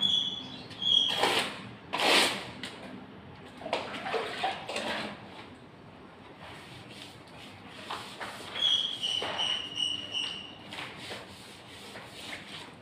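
Wallpaper backing being soaked with water by hand from a bucket so it can be stripped: irregular wet rubbing and wiping strokes on the wall, the two loudest about a second and two seconds in.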